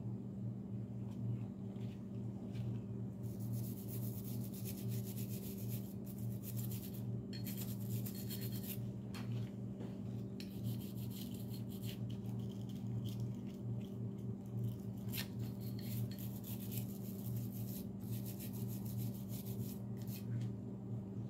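Rapid scrubbing and scraping on a disassembled pistol slide with a small cleaning tool, in repeated spells from about three seconds in, over a steady low hum.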